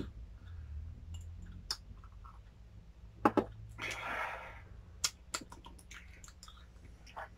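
Quiet sounds of people drinking whisky shots: scattered small clicks of glasses and mouths, with a short breathy exhale about four seconds in, over a low steady hum.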